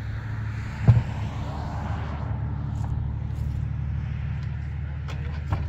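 A steady low rumble like an engine running nearby, with one sharp knock about a second in and a few light clicks near the end as items are loaded into the back of a car.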